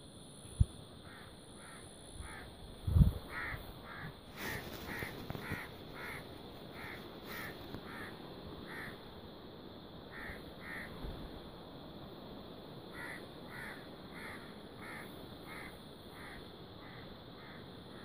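Crows cawing, a long run of short harsh calls about two to three a second that breaks off for short pauses and starts again. A sharp thump sounds about three seconds in, and a steady high drone runs underneath.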